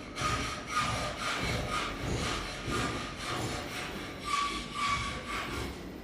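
Hand sawing: steady back-and-forth saw strokes, about two a second, some with a short squeal.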